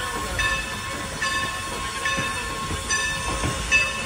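Norfolk & Western 4-8-0 steam locomotive No. 475 standing with steam up: a steady whine and hiss, with a pitched pulse that repeats about every 0.8 seconds.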